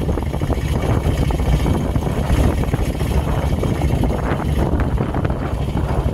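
Motorcycle engine running steadily while riding along a road, mixed with wind rushing over the microphone.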